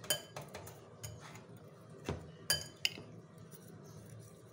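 Metal spoon clinking against a ceramic plate while mixing pieces of raw meat with spices: about six sharp ringing clinks, the loudest about two and a half seconds in.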